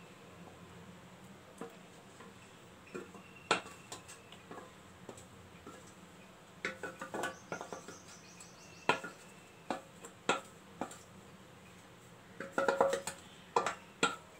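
Stainless steel bowl and wooden spatula knocking and scraping against metal while thick batter is tipped out into a cooking vessel: scattered short ringing clinks, more frequent toward the end with a quick cluster near the end.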